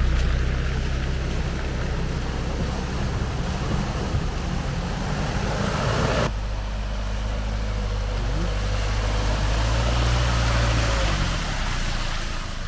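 Off-road 4x4 engine running under a steady rushing noise, with an abrupt change in the sound about six seconds in.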